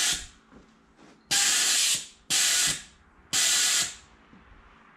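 Pressurised gas blasting out of a home-made nitrous injector in short, sharp hisses as a solenoid valve is pulsed open and shut: three bursts of about half a second each, roughly a second apart, after the tail of one more that cuts off just after the start. This is a bench test of the injection system.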